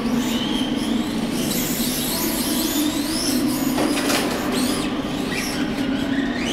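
Radio-controlled car driving on smooth concrete: a high whine that rises and falls as it speeds up and slows through the cones, over a steady low hum. A single sharp click about four seconds in.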